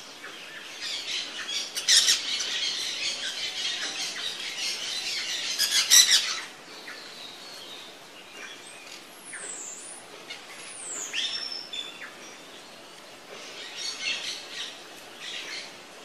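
Parrots chattering and squawking in a dense, harsh run for the first six seconds or so, with a shorter burst of chatter near the end. A few thin falling whistles sound in between.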